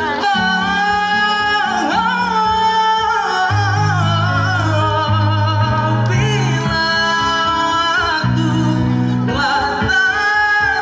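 A man singing a qasidah song through a microphone and stage sound system, holding long, ornamented notes over live band accompaniment with guitar and changing low instrument notes.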